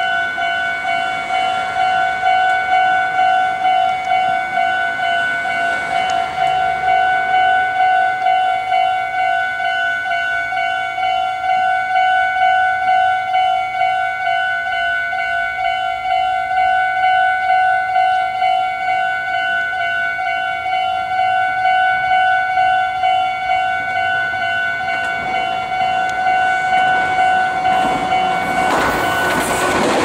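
Japanese railway level-crossing alarm ringing in an even, rapid electronic ding-ding, warning that a train is coming. Near the end, an approaching Meitetsu 6800 series train's running noise swells in under it.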